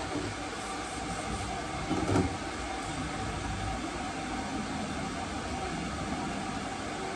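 Steady low room hum in a hair salon, with a brief handling noise about two seconds in.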